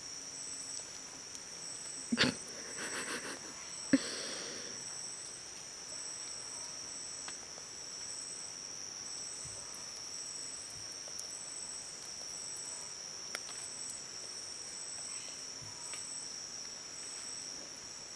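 Insect chorus: a steady high-pitched trilling, with a second, higher one pulsing over it. About two and four seconds in, sharp clicks and a brief rustle.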